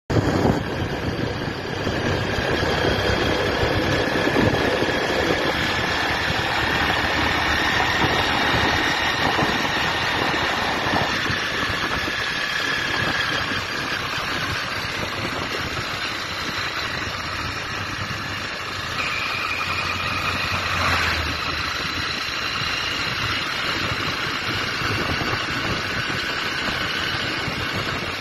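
A moving vehicle's engine running steadily, mixed with road and wind noise, with a faint whine that rises and falls.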